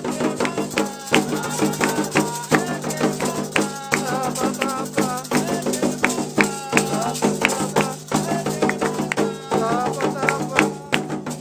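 Afro-Brazilian Candomblé ritual music: rapid, steady percussion from drums and rattles, with voices singing over it.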